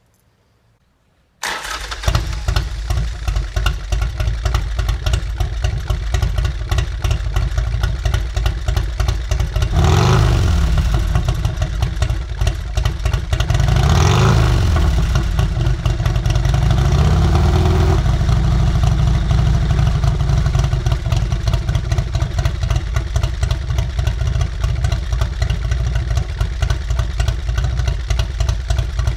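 2008 Confederate Hellcat's V-twin engine starts about a second and a half in, then idles loudly with rapid, uneven pulses. It is revved up and back down twice around the middle, with a smaller blip shortly after, then settles back to idle.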